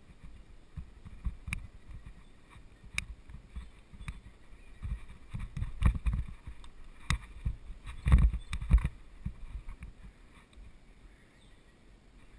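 Mountain bike riding over a bumpy dirt trail: irregular low thumps and rattles from the bike, with sharp clacks over bigger bumps, the loudest cluster about eight seconds in, then settling down near the end.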